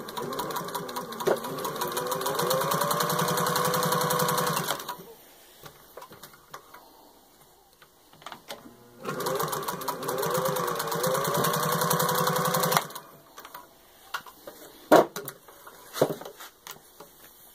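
1938 Singer 201 sewing machine, driven by its 1950s replacement motor, stitching through six layers of denim in two runs of about four seconds each. In each run the motor whine rises as it comes up to speed, then holds steady over the fast clatter of the needle. A few sharp clicks come near the end.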